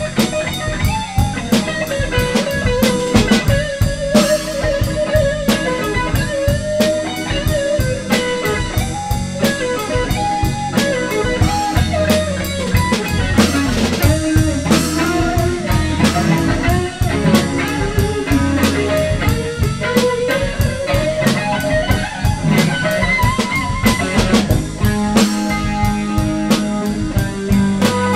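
Live blues band playing: an electric guitar takes a lead line with bent, sliding notes over a steady drum kit beat.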